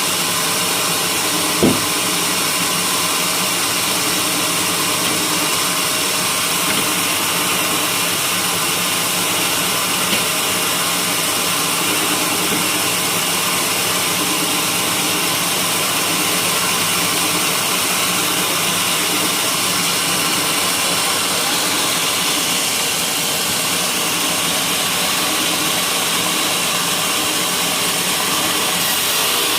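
Sawmill machinery running steadily while sawing white teak, a loud continuous drone with a single short knock about two seconds in.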